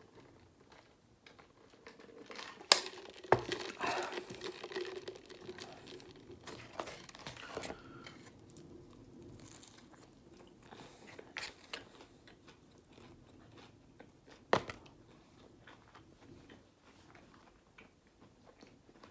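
A person eating close to the microphone: chewing and biting into a KFC Zinger crispy fried chicken sandwich, with coleslaw. Busiest in the first several seconds, then quieter chewing, with a few sharp knocks about three seconds in and again near fifteen seconds.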